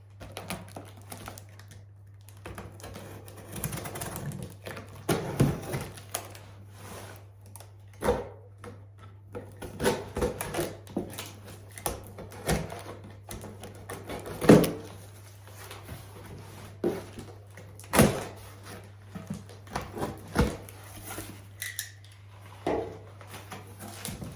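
Cardboard shipping box being opened with a Stanley utility knife and then handled. Irregular knocks, taps and scraping come every second or two, with a low hum underneath.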